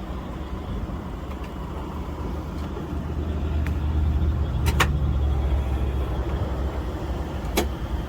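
Motorway traffic passing close by: a heavy vehicle's deep rumble swells over a few seconds and then eases off. Two sharp clicks are heard over it, one near the middle and one near the end.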